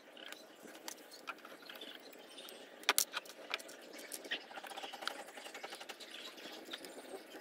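Small clicks, taps and scrapes of gloved hands handling a welding electrode holder and working on it with a screwdriver, with a pair of sharper clicks about three seconds in.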